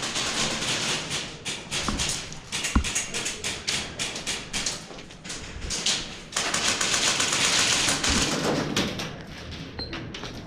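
Airsoft guns firing: irregular runs of rapid, sharp pops and clicks, thickest in the first half, followed by a stretch of rustling movement noise.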